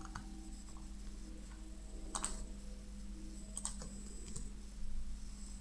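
A handful of sharp computer mouse clicks, one about two seconds in and three more over the following three seconds, as a web page is refreshed repeatedly. A faint steady electrical hum runs under them.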